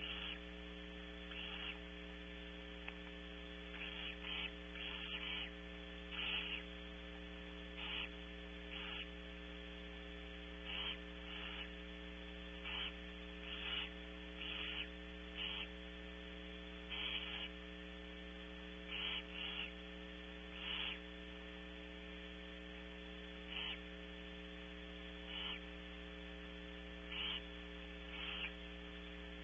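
Barn owls in the nest box giving short raspy hisses, repeated at irregular intervals about every one to two seconds, over a steady electrical hum from the nest camera's audio.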